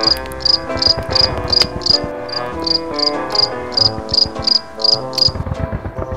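Crickets chirping in a regular rhythm, about three chirps a second, stopping about five seconds in, over slow instrumental music.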